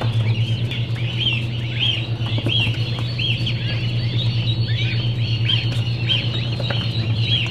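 Many day-old waterfowl hatchlings peeping together, short high chirps several a second and overlapping, over a steady low hum.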